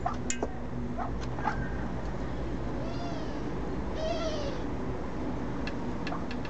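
A cat meowing twice, short rising-then-falling calls about three and four seconds in, with a few sharp clicks around them.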